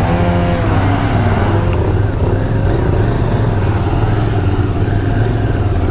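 Motorcycle engine running steadily at low revs close by, the rider's Royal Enfield Continental GT 650 parallel twin. In the first second and a half a passing vehicle's engine note falls in pitch.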